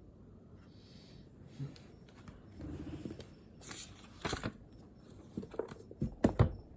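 Rustling and handling noise with several sharp knocks, which come thicker and louder near the end.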